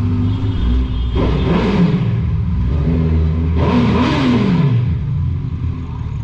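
Suzuki Hayabusa inline-four through a Two Brothers Racing aftermarket exhaust, revved hard twice while riding; each rev rises and then falls away, over a steady engine and road rumble.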